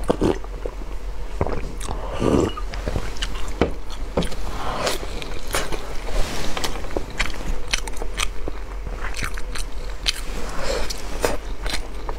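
Close-miked mouth sounds of a person biting and chewing glazed sticky-rice zongzi, with many short sharp clicks at irregular intervals and a swallow of water near the start.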